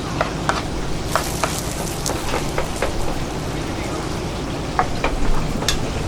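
Hoppers cooking on a street-food stall: a steady sizzling hiss with scattered clinks and taps of utensils on the small hopper pans.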